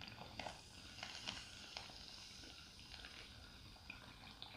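Glass bong being drawn on slowly: faint bubbling of the water with light crackling and ticks from the lit bowl.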